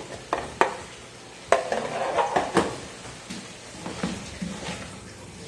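Spatula knocking and scraping against a plastic tub and the rim of a large metal pot as chopped herbs go in, then stirring chicken and vegetables in the pot: a handful of sharp clicks and knocks with a rattle of food and utensil in the middle.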